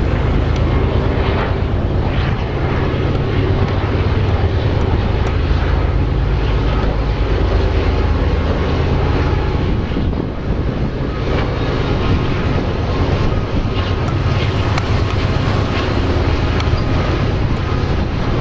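Union Pacific diesel locomotives leading a freight train, their engines running with a steady low drone.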